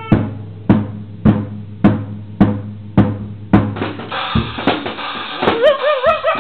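Drum kit played in a steady beat, about two hits a second. Near the end a young husky–German shepherd mix joins in with a wavering howl that rises and falls in pitch over the drumming.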